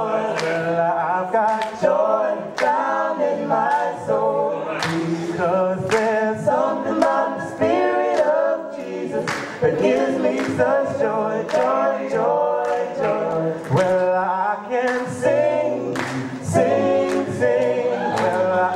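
Male vocal quintet singing an upbeat gospel song a cappella in harmony, several voices together, with sharp accents on the beat about once a second.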